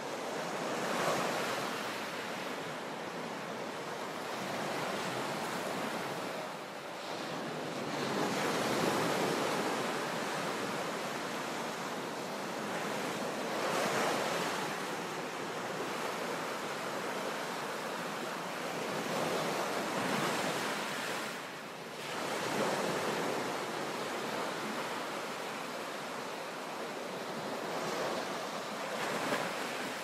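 Sea waves crashing into a sea cave: a continuous rushing wash of water that surges every six seconds or so as each wave breaks in.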